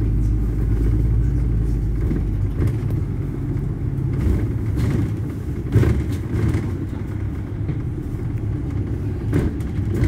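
A London double-decker bus moving along a street, heard from inside: a steady low rumble of engine and road noise. The deepest engine tone drops away about three seconds in, and there are a couple of sharp knocks, near six and nine seconds in.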